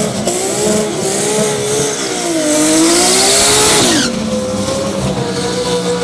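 Toyota Supra drag car doing a burnout: the engine is held at high revs with its pitch wavering, and from about two and a half seconds in the spinning rear tyres add a loud screeching hiss. About four seconds in the revs drop and the hiss stops, and the engine runs at a steadier pitch as the car rolls out.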